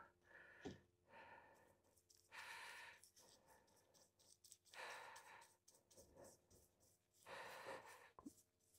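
Near silence, with three faint, soft breaths about two and a half seconds apart.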